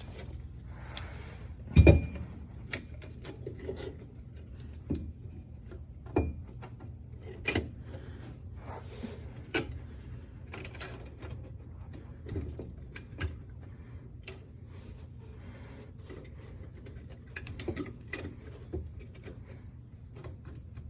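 Irregular metallic clinks and knocks of tools and parts while carrier-bearing shims are worked into a Ford 8.8 rear axle housing, with one loud knock about two seconds in.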